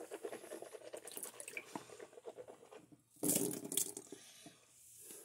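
Rinsing the mouth after brushing: a mouthful of water swished around for about three seconds, then spat out in a louder, harsher burst.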